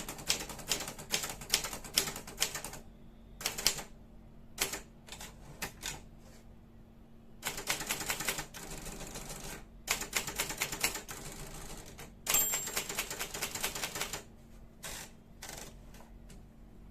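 Brother Deluxe 750TR typewriter being typed on: bursts of rapid key strikes separated by short pauses and a few slower, scattered keystrokes, with a brief high ring about twelve seconds in.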